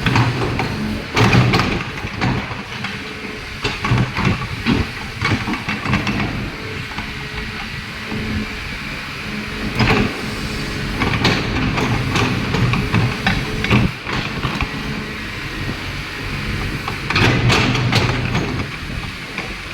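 Kobelco hydraulic excavator's diesel engine running and swelling under load several times, with scattered knocks and scraping from the machine working.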